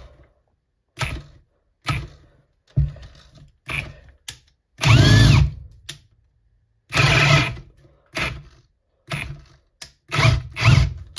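Parkside Performance PABSP 20-Li C2 brushless cordless drill on its second speed, started again and again in short bursts, roughly one a second, with a 24 mm bit that it cannot turn. Each time the motor bogs down and stops, a stall the owner puts down to a weak battery.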